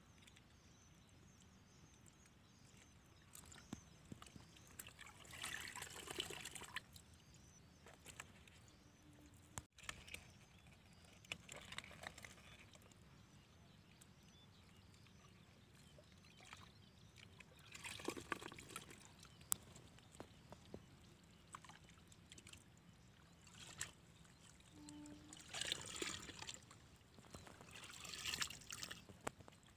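Muddy water splashing and pouring in short bursts, about five times, as it is scooped out of a shallow mud hole with a plastic basket.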